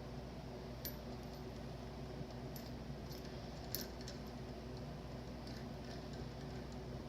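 A few faint, light metallic clinks, the clearest about three and a half seconds in, as a washer and a syringe hose are handled at the mouth of a fork tube. A steady low hum runs underneath.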